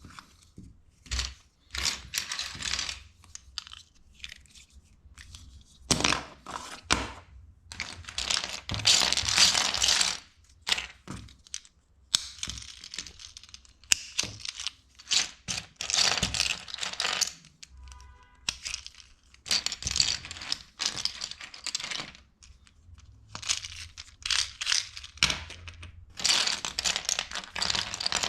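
LEGO bricks being handled: irregular bursts of plastic pieces clattering and rustling, with sharp clicks as bricks are pressed together.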